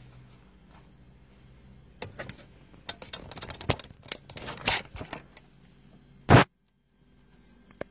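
Handling sounds of a cardstock gift box being set down on a craft table: a run of irregular taps, knocks and rustles. A single loud knock follows near the end, and then the sound cuts off abruptly to dead silence.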